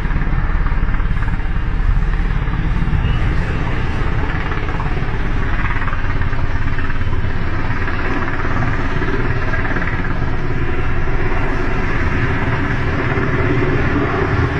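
Military helicopter flying low overhead, its rotor and engine making a loud, steady, deep noise.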